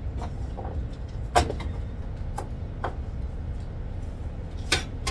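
Kitchen knife knocking on a plastic cutting board during chopping: a few scattered sharp knocks, the loudest about a second and a half in and near the end. A steady low rumble underneath.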